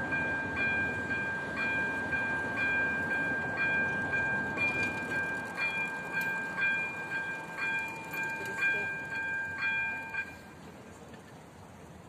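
Level-crossing warning bell ringing steadily, struck about once a second, while the barriers lower. It stops about ten seconds in, once the barriers are down.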